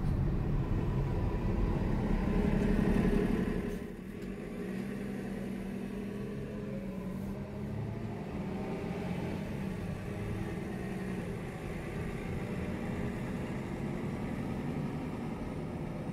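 City street traffic heard from a car driving slowly: a steady engine and tyre rumble, with a city bus's engine running alongside. It is louder for the first four seconds, then drops and stays steady.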